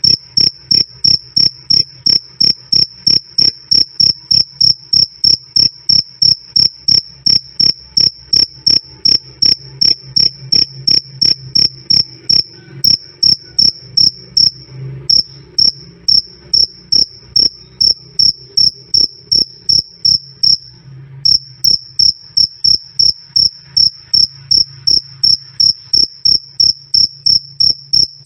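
Male field cricket chirping loudly and clearly, a steady 'krik krik' of about two to three chirps a second on one high pitch, with brief pauses about halfway through and again a few seconds later.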